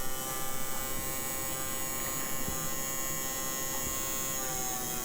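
A small DC hobby motor, powered from an AA battery pack through a potentiometer, spins freely with a steady high electric whine. Its pitch drops slightly near the end.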